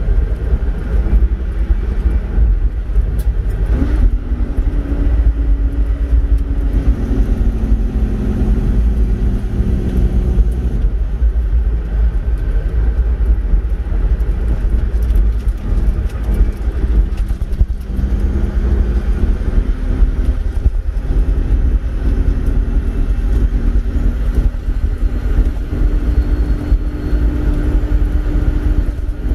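Truck engine running under way with tyre and rumble noise on a gravel track, heard from inside the cab; the engine note rises and falls as the speed changes.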